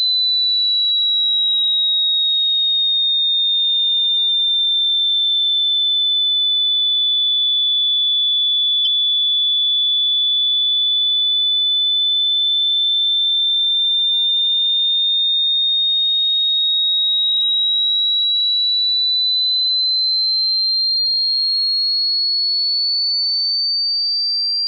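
A single high-pitched pure electronic tone, a sine wave, held steady in loudness. It sinks slowly in pitch over the first third, then climbs slowly through the rest to end higher than it began. There is one faint click about nine seconds in.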